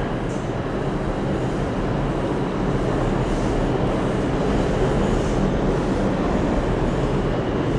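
Steady rumble of a subway train running on the tracks, growing slightly louder partway through.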